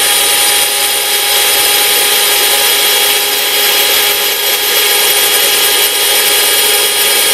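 Cordless drill running steadily with an arrowhead (spear-point) tile bit boring into ordinary ceramic tile: a steady motor whine over the gritty hiss of the bit grinding through the tile.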